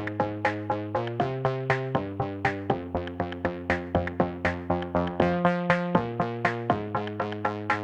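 Electronic background music: synthesizer notes over a steady, quick beat.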